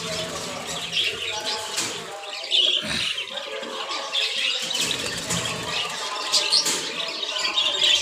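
Many caged aviary birds, budgerigars among them, chirping and squawking in a dense, continuous chatter.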